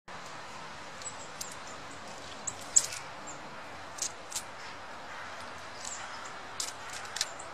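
Short, sharp high-pitched chirps and clicks from animals at a forest feeding place, scattered irregularly over a steady background hiss, the loudest a little under three seconds in.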